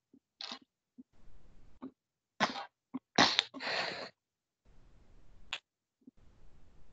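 A few short breathy, hissing noises from a person, such as puffs of breath or a stifled sneeze, the longest a little over three seconds in, each cutting off sharply.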